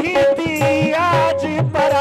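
Live qawwali music: a man's voice sings a wavering, ornamented melodic line over held harmonium notes and tabla strokes.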